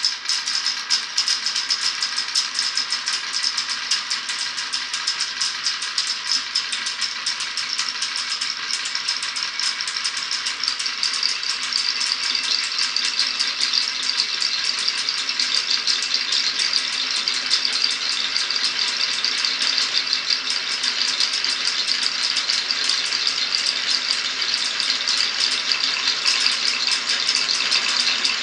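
Glass marbles rolling and clicking along a wooden marble-run course, a dense, continuous clatter of small clicks.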